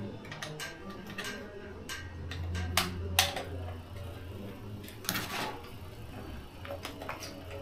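Scattered clicks and knocks of small gear and plastic parts being handled, the loudest about three seconds in and a longer rattle about five seconds in, over a low steady hum.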